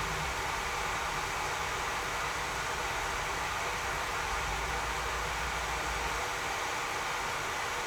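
Stovetop tea kettle heating water towards the boil, giving a steady hiss with some low rumbling that eases off near the end; it is not yet whistling.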